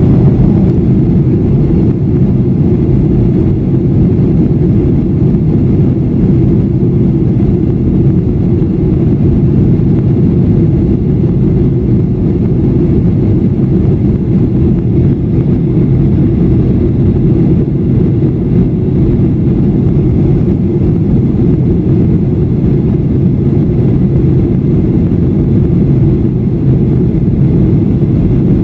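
Steady in-flight cabin noise of a jet airliner heard at a window seat: a constant low rumble of engines and airflow.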